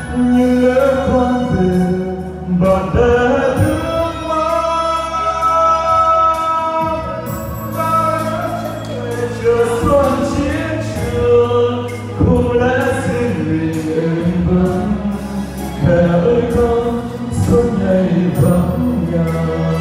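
A man sings a Vietnamese song into a handheld microphone over instrumental accompaniment, his voice gliding between sustained notes above a steady bass line.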